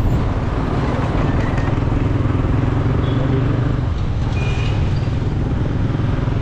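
Motorcycle riding at a steady speed: the engine running with a steady low hum, mixed with wind and road noise.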